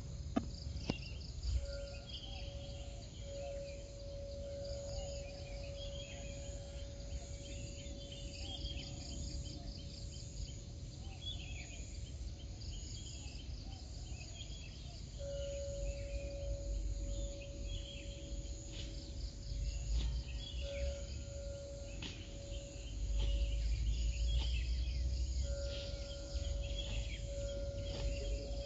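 Dawn chorus in a tropical garden: birds chirping on and off over a steady fast insect trill. A steady pitched hum drops out and comes back, and a low rumble grows louder in the last few seconds.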